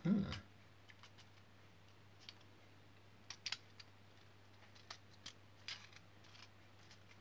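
Plastic building bricks being pressed together by hand: a dull knock right at the start, then a few short, sharp plastic clicks spread out through the rest.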